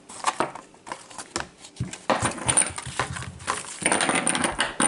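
Clicks and rustling as small hard plastic Mighty Beanz toys are handled and set down on a wooden table, a dense run of clicks and rustle from about two seconds in.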